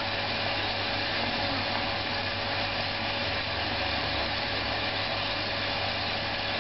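A motor running steadily, with a constant rushing noise, a steady whine and a low hum.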